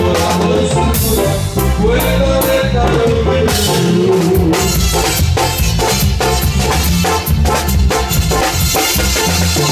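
Live band playing dance music: steady bass, a melodic line and a regular drum beat, with the drum hits coming through more sharply from about halfway in.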